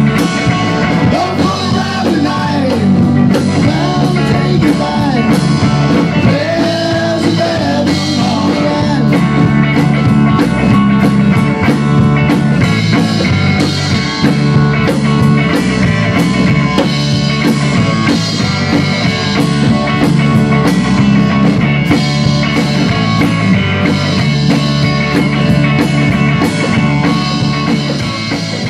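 A rock band playing live in a rehearsal room: drum kit, electric bass and electric guitar, with a sung vocal over the first several seconds. The playing gets quieter near the end as the song winds down.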